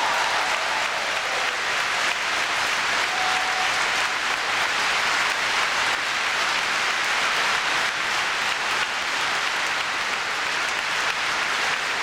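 Large audience applauding steadily, welcoming a guest who has just been introduced.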